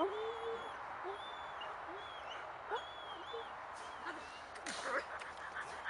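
Muzzled German Shepherd whining, short high whines repeated about once a second while it is held back on its line. Near the end come a few sharp scuffs and knocks as it lunges forward.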